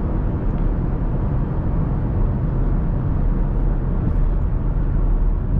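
2015 Chevrolet Camaro's 3.6-litre V6 engine and road noise, steady while the car is driven along a road.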